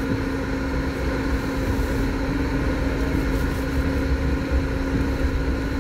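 Lada Niva's engine and drivetrain running steadily as it drives slowly over snow, heard from inside the cabin, with a steady hum over a low rumble.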